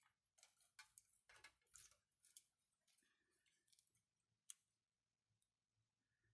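Faint handling noise: several short scrapes and clicks over the first few seconds as small 3D-printed plastic parts and a steel digital caliper are picked up and handled on the mat.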